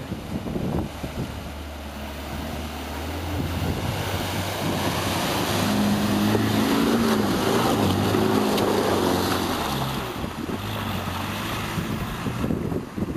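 Land Rover Discovery driving through a muddy pond: the engine runs under load while water churns and splashes around the wheels. The revs climb and waver as it drives up out of the water, and it is loudest in the middle as it passes close.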